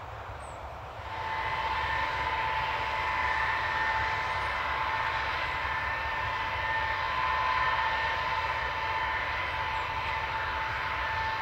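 Tupolev Tu-154M's Soloviev D-30KU-154 turbofan engines running at low power as the jet rolls on the ground: a steady whine with a second, higher tone above it over a rushing hiss, growing louder about a second in.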